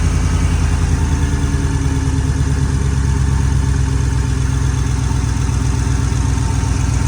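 Ford F-150 SVT's 6.2-litre V8 engine idling steadily, sounding smooth with no whine from the belt drive now that the worn idler pulleys have been replaced.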